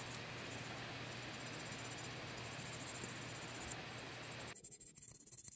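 Faint scratchy rubbing of a cotton swab soaked in paint stripper scrubbing the metal of a die-cast model bus chassis, over a steady hiss and low hum. The sound drops away about four and a half seconds in.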